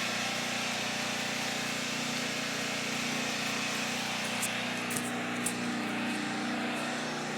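Home backup generator running steadily with an even, droning engine hum, supplying the house's power during an outage. A few faint clicks come about four to five and a half seconds in.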